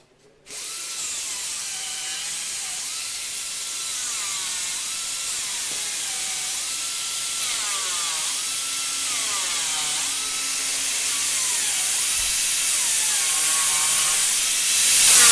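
Hand-held air drill running on the riveted aluminium frame of a Lancaster bomber fuselage, its whine dipping in pitch as the bit bites and climbing back as it frees, over and over every second or two. It grows gradually louder toward the end.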